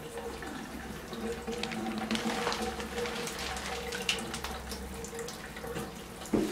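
Bathtub tap running, water trickling and spattering into the tub with many small irregular drips, and a single knock near the end.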